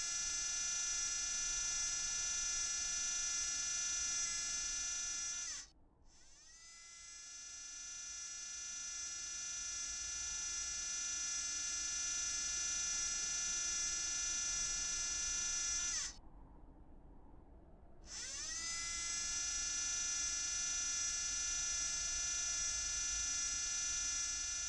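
High-pitched electric motor whine of a rover's motors: it stops about six seconds in, starts again rising in pitch as it spins up, runs steadily, and cuts off about sixteen seconds in, then spins up once more two seconds later.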